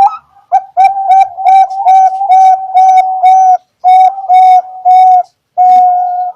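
Bangkok-strain zebra dove (perkutut) singing: a long run of short, clipped coos all on one pitch, with a brief break about three and a half seconds in, ending on a longer drawn-out coo.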